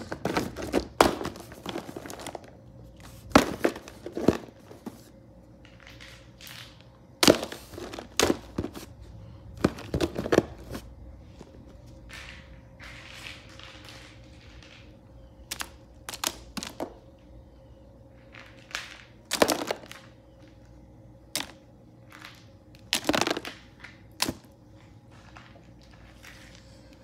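Small hard plastic toy animal figures clattering and knocking against each other as a hand rummages through a box of them: irregular clicks and thunks, with some softer rustling between them.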